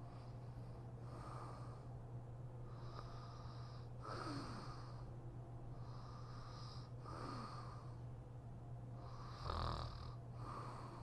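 A woman snoring in her sleep: slow, regular breaths in and out, one cycle about every three seconds, with a louder snort about nine and a half seconds in. A steady low hum lies underneath.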